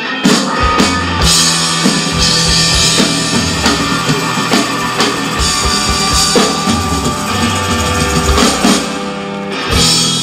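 Live rock band playing: electric guitars, bass and drum kit, with hard drum hits throughout. A big hit comes about a second before the end and rings on.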